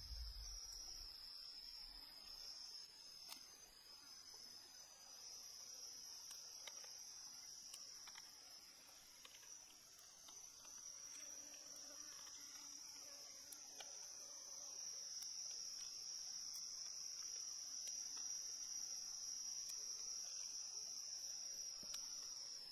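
Steady, high-pitched drone of insects in the background, with a few faint ticks.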